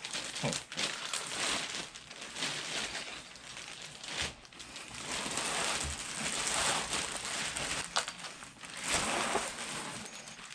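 Packing paper rustling and crinkling as it is unwrapped from around a boxed replica championship belt, in irregular swells.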